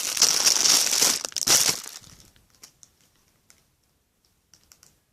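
Plastic packaging bag crinkling loudly as it is handled and pulled off a squishy toy, stopping about two seconds in; a few faint small clicks follow.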